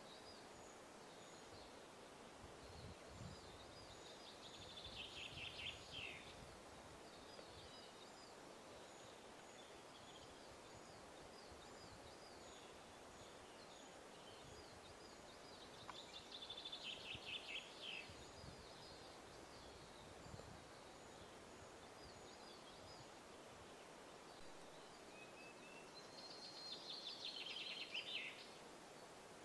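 Male western capercaillie singing its display song three times, each phrase a run of clicks quickening into a rapid scraping flourish about two seconds long.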